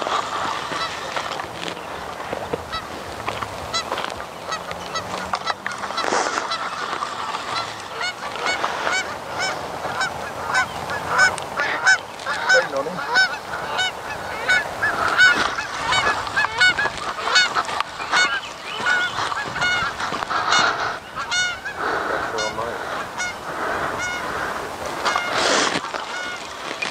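A flock of geese honking, with many short calls overlapping continuously. The calling is thickest through the middle and later part.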